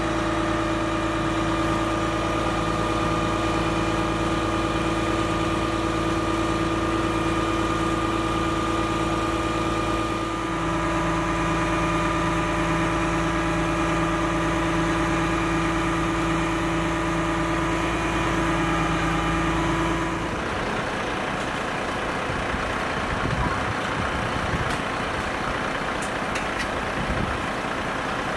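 Fire brigade aerial platform truck running steadily with its boom and basket in use, a steady engine hum with a held tone. Near the two-thirds mark the hum drops out, leaving a rougher, noisier rumble.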